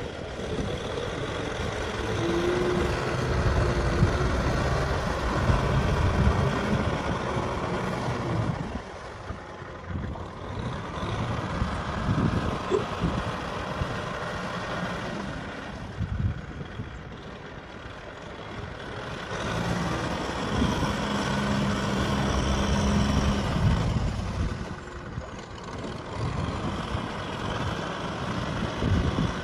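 Kubota M6040 SU tractor's diesel engine running, twice swelling louder for several seconds before easing back.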